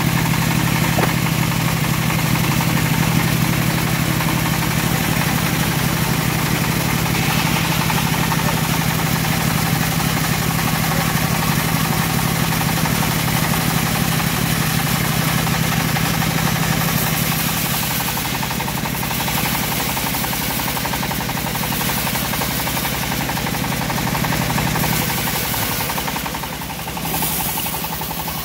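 Homemade bandsaw sawmill running as its blade rips lengthwise through a teak log: a loud, steady mechanical drone that eases slightly about eighteen seconds in.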